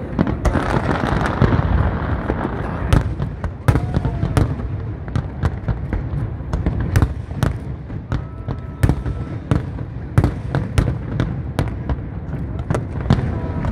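Fireworks display: a rapid, irregular string of aerial shells bursting with sharp bangs over a continuous low rumble, with a dense crackle in the first couple of seconds.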